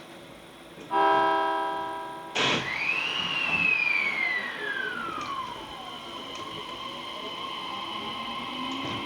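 An electric train sounds one short blast on its horn, then with a clunk starts off. Its motor-inverter whine rises briefly and glides down in pitch as it pulls away, settling into a steady hum.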